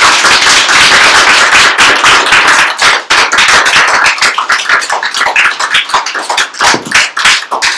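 Audience applauding: dense, loud clapping at first, thinning to scattered separate claps toward the end.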